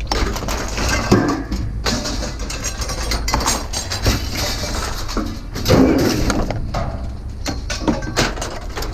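Scrap metal pieces clanking and banging at irregular intervals as they are pulled off a trailer and tossed onto a pile, over a steady low rumble.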